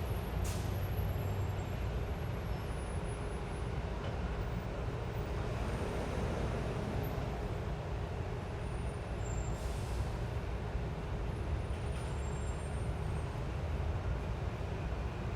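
Busy city street traffic: a steady low rumble of passing vehicles, with a short high hiss about half a second in and another around ten seconds in.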